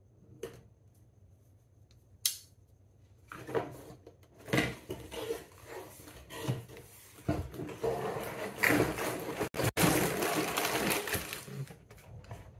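Cardboard Lego set box being opened: a sharp snap about two seconds in, then the cardboard being handled. From about seven seconds in, a dense rustling and rattling of sealed plastic bags of Lego Technic parts being tipped out onto the table.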